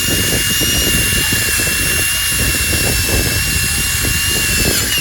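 Electric power sander running steadily against the steel hull: a high, steady motor whine over a continuous abrasive hiss and rumble. It stops abruptly at the very end.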